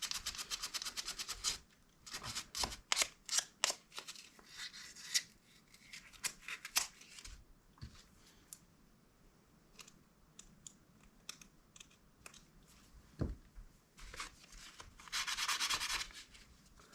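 Hand sanding of a small metal solenoid plunger from a mechanical seatbelt-warning chime with 600-grit sandpaper, taking off rust and crud: quick back-and-forth rubbing strokes in bursts, with pauses and a few small clicks in between, and another burst of strokes near the end.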